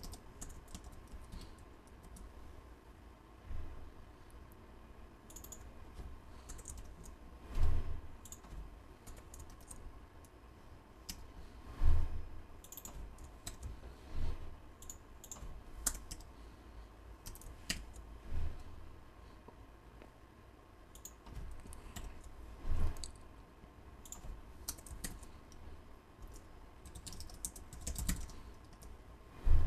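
Typing on a computer keyboard: irregular, scattered keystrokes with pauses between bursts, and a handful of louder knocks every few seconds.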